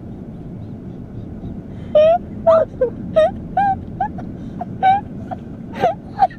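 A person whimpering in short, high-pitched cries, about two a second, starting about two seconds in. The cries come from someone upset by a long bout of hiccups.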